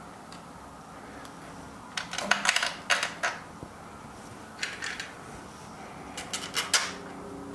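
Small metal screws and nuts clicking and clinking against the grinder's parts as they are handled and set in place, in three short clusters of sharp taps.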